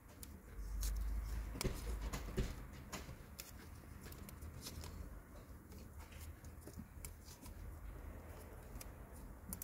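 Hands wrapping tape around cut wires: scattered small clicks and crackles of the tape and wires being handled, with louder low bumps of handling in the first couple of seconds.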